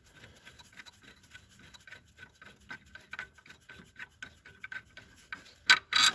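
Accessory drive belt being worked off the engine's pulleys by hand: faint rubbing and irregular ticking, with two louder knocks near the end.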